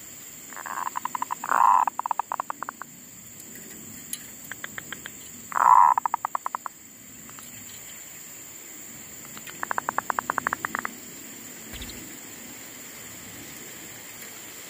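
Zebra dove (perkutut) singing: three bouts of rapid staccato cooing notes, the first the longest, with a few softer notes between them.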